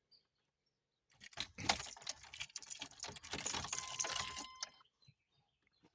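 Keys jangling: a dense jumble of small metallic clicks and rattles lasting about three seconds, starting a little after a second in.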